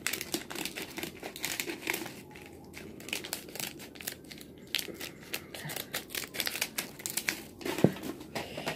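Plastic circuit membrane of a disassembled computer keyboard being crumpled and pulled apart by hand: a dense, irregular run of crackles, with one louder snap near the end.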